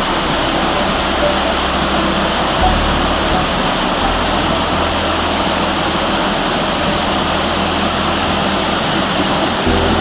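Haha no Shirataki waterfall: falling water in a steady rush. Low held notes sound underneath and change every few seconds.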